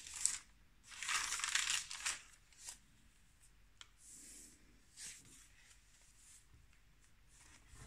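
Paper rustling as the pages and tucked-in paper pieces of a handmade art journal are turned and handled. It comes in several short bursts, the longest lasting about a second, with a few light clicks between them.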